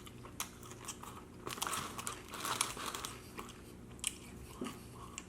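Close-miked chewing and biting of sauced chicken wings: wet mouth smacking with crunchy bites, a rapid, irregular run of sharp clicks and smacks that is busiest in the middle.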